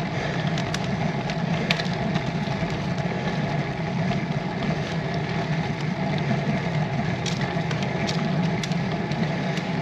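Steady rolling noise of a road bike climbing slowly on rough tarmac, with scattered small clicks and ticks.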